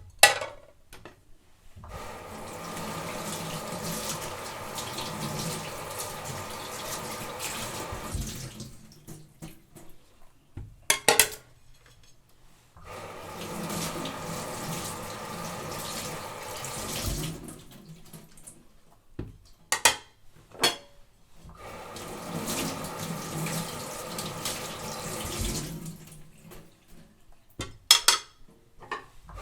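Kitchen sink tap running in stretches of several seconds while dishes are washed, with the water stopping in between. Sharp clinks of dishes and glasses knocking together fall in the gaps, four times, and are the loudest sounds.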